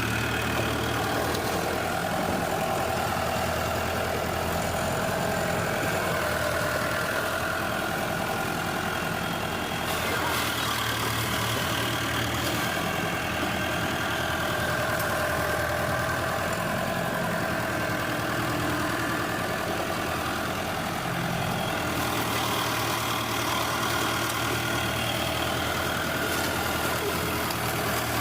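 Tractor engine running steadily, its note shifting slightly about ten seconds in and again about twenty-two seconds in.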